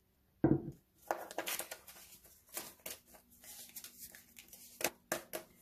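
Paper banknotes rustling and crackling as a stack of dollar bills is picked up and handled, a run of short crisp snaps, after a brief thump about half a second in.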